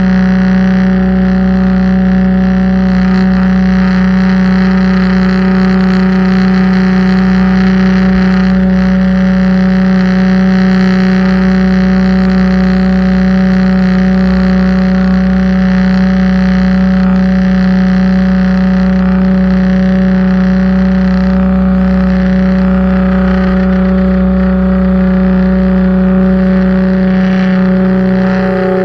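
Pressure washer running steadily: a loud, constant drone with a strong even hum that holds its pitch throughout.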